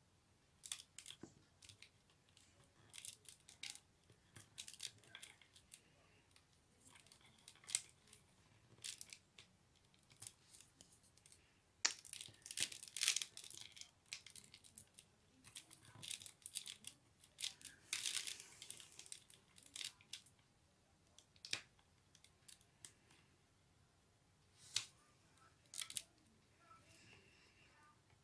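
Rolled paper tubes rustling and scraping as they are woven by hand through the uprights of a small paper basket, with a wooden stick pushing them into place. Irregular short scratchy crackles, with busier stretches about twelve and eighteen seconds in.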